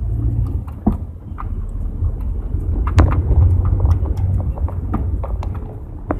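Low, steady rumble of a car being driven, heard from inside the cabin, with a few sharp knocks: one about a second in, a louder one near the middle, and one near the end.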